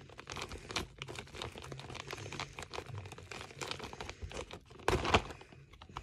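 Crinkling and rustling of a pink plastic bubble-wrap zip pouch being handled and worked at its zip edge, in quick irregular crackles, with a louder rustle about five seconds in.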